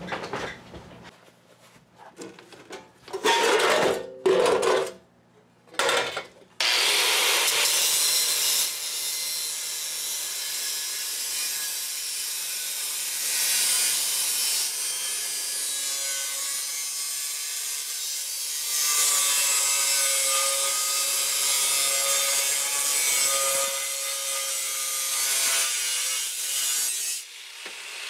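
Angle grinder cutting and trimming the sheet-steel flange of a 1935 Ford truck firewall, running steadily under load with a whine, from about seven seconds in until near the end. A few short noisy bursts come before it.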